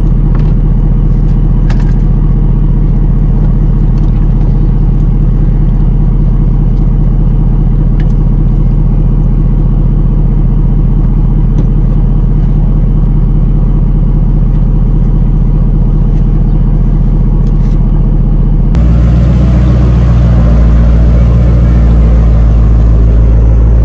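Tow vehicle's engine idling steadily with a fine, even beat. About nineteen seconds in it speeds up and grows louder as it pulls the loaded boat trailer up the ramp out of the water.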